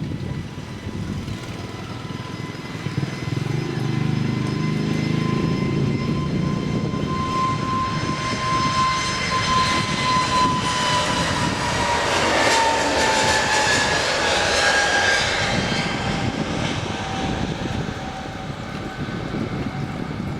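Airbus A320neo airliner's jet engines at takeoff power as it departs, growing louder and then easing off as it passes. A steady whine drops in pitch as the aircraft goes by.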